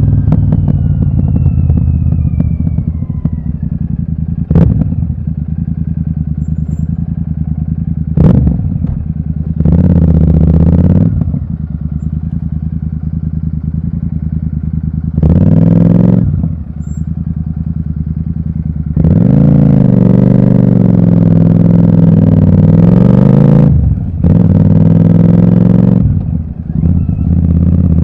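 Royal Enfield Super Meteor 650's parallel-twin engine idling through a loud, open aftermarket exhaust with its dB killers removed. It is blipped twice sharply, then revved several times for a second or so each, once held for about four seconds in the second half.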